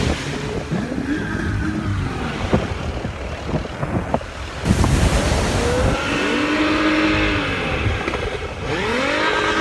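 A motor engine revving up and falling back twice in the second half, over wind buffeting the microphone.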